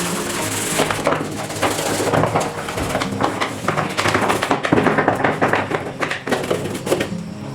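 A brush scrubbing the detergent compartment of a top-loading washing machine in rapid, scratchy back-and-forth strokes, easing off near the end, over quiet background music.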